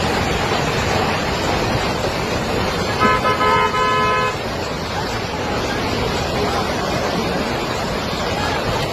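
A vehicle horn honks a few times in quick succession about three seconds in, lasting just over a second, over a steady rushing roar.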